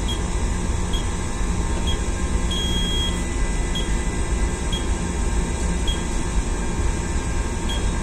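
Fire alarm control panel keypad giving short high beeps about once a second, with one longer beep about two and a half seconds in, as its menu is scrolled through the call-point addresses. Under it runs the ship's steady low machinery and ventilation drone.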